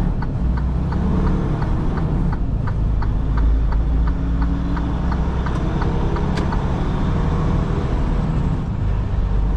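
Semi-truck's diesel engine running with a steady low rumble, its pitch shifting as it pulls. A quick, even ticking, about three ticks a second, runs over it until about two-thirds of the way through.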